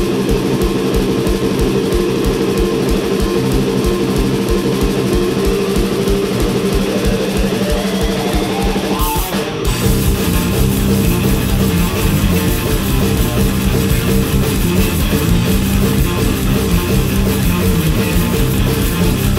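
Electric guitar and drum kit playing a loud instrumental rock passage with no vocals. There is a short break about nine seconds in, after which the band comes back fuller in the low end.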